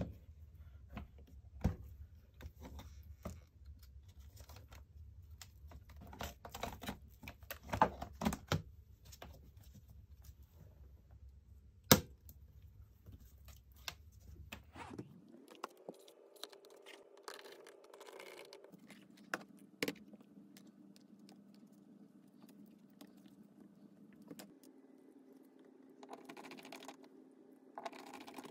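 Scattered small clicks, taps and rattles of a laptop's top case, plastic palmrest and metal keyboard plate, being handled and set in place by hand, with one sharp click about twelve seconds in. A faint steady hum runs underneath.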